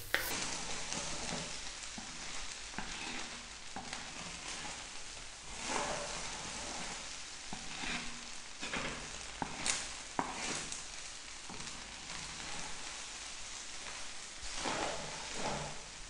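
Chicken fried rice sizzling in a steel wok while a wooden spatula stirs, tosses and scrapes it at irregular moments. The rice is being fried through in the last minutes of cooking.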